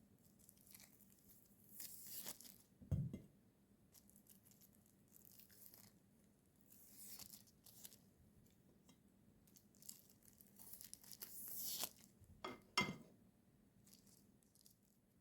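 Soft tearing and crinkling rustles from food preparation, in several swishes, with a dull knock about three seconds in and a couple of sharp knocks near the end.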